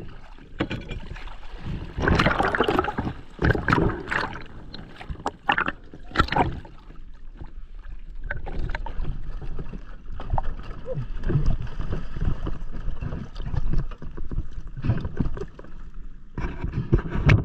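Sea water sloshing and splashing close to the microphone in irregular bursts, then settling into a steadier low rumble of moving water.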